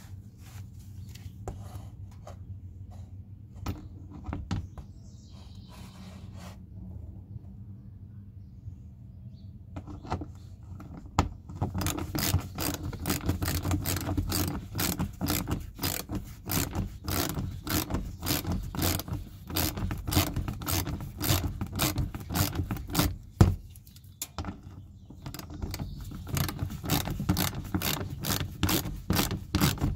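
Socket ratchet clicking in rapid runs as it drives in a bolt of the car's engine under-cover. The work is quieter and sparser at first, then comes in long runs of fast clicks with a short pause near the end. A steady low hum lies underneath.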